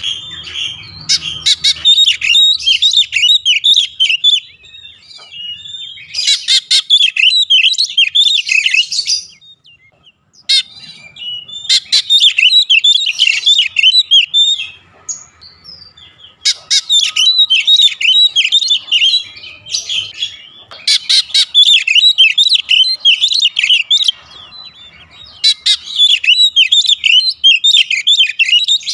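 Oriental magpie-robin singing: fast runs of loud, high chirps and whistles in phrases a few seconds long, broken by short pauses.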